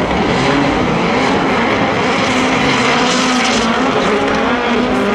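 Rallycross supercars, a VW Polo and a Ford Focus RS with turbocharged 2.0-litre four-cylinder engines, racing past under hard throttle; the engine notes are loud and continuous, their pitch wavering slightly.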